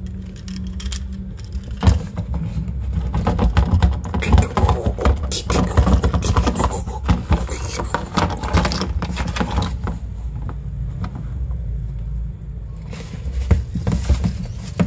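Small plastic snap-jaw dinosaur toy being handled, its parts clicking and rattling against the hand and tabletop. The clicks are dense from about two seconds in to past the middle, and come back near the end, over a steady low hum.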